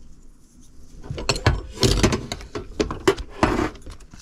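Sharp metallic clicks and knocks, with two short clattering bursts about two seconds in and near the end, from handling a valve spring compressor and spring retainer on an aluminium cylinder head while fitting the valve cotters.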